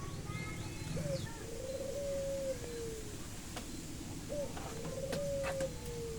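A dove cooing repeatedly, a low call about every three and a half seconds: a short opening note, then a long note that slowly falls in pitch. A few faint clicks in the second half.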